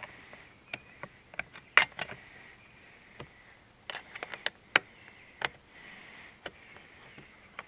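Irregular light clicks and knocks of hands and tools working on the motorcycle while the fuel tank is fitted, the sharpest knock about two seconds in.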